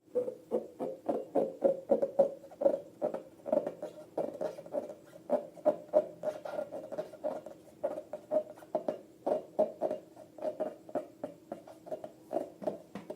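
A quick run of short squishy squeaks, about three a second, from slime and rubber balloons being squeezed and worked by hand.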